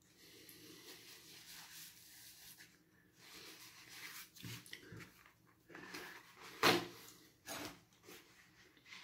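A person breathing hard against chilli burn from very spicy noodles: a long hissing breath out, then short sniffs and breaths, with a sharp, louder sniff or snort about two-thirds of the way in.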